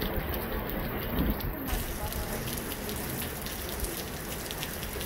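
Steady outdoor noise with a fluctuating low rumble and faint distant voices, typical of wind on a phone microphone at an open sports field. The noise changes character about a second and a half in, where the recording cuts.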